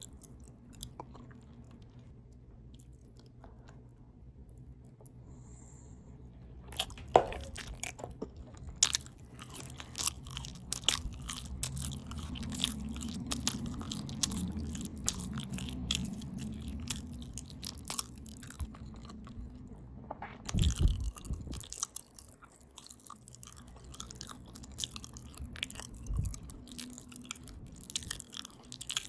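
Open-mouth chewing of a potato taco bowl close to the microphone, with wet smacking and clicking mouth sounds. It is faint at first, starts in earnest with a sharp click about seven seconds in and is densest through the middle. A brief low sound comes just after twenty seconds, and the chewing then goes on more sparsely.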